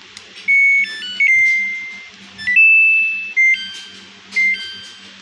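Electronic beeper melody from a Samsung washing machine control board: a tune of single square-ish beeps that step up and down in pitch, some short and some held for about a second.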